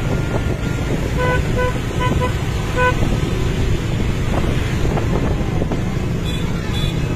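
Vehicle horns tooting a quick string of short beeps, starting about a second in, over the steady low rumble of dense motorbike and car traffic.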